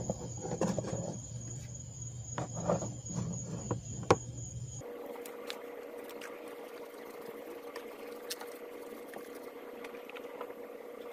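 Hand work on a tire on its rim: scattered knocks and scrapes with one sharp click about four seconds in. About five seconds in the sound changes abruptly to a faint steady hum with a few light ticks.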